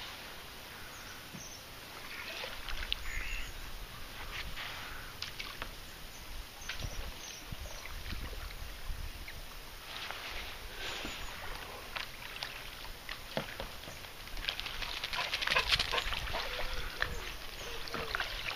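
Ducks quacking now and then while a kayak paddle dips and splashes in the water, the splashing thickest near the end.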